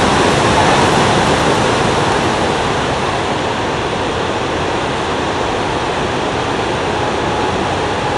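River rapids: white water rushing, loud and steady.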